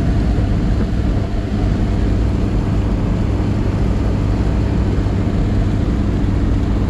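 1991 Mercury Capri's 1.6-litre four-cylinder engine running steadily as the car is driven, under a heavy, even rush of wind and road noise.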